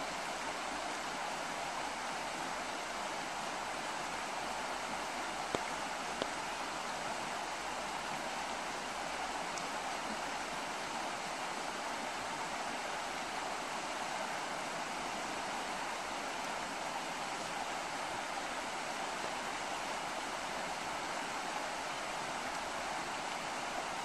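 River rapids: water rushing steadily over shallow rapids in one constant, even rush, with two faint clicks about five and six seconds in.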